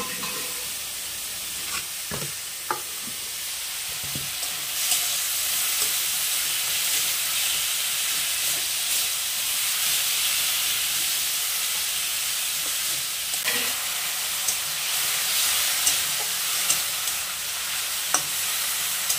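Chickpea and potato masala sizzling in a steel kadai as it is stirred with a flat spatula, giving a steady frying hiss. The spatula scrapes and taps against the pan a few times.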